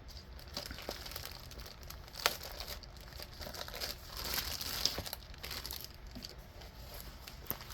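Packaging of a diamond painting kit crinkling and rustling as it is unpacked by hand, with a few light clicks and taps, the sharpest about two and five seconds in.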